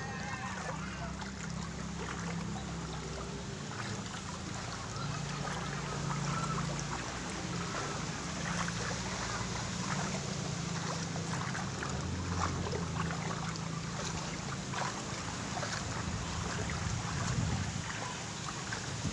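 Floodwater sloshing and splashing as someone wades through a flooded street, with many small irregular splashes over a steady wash of water, and a low rumble of wind on the microphone.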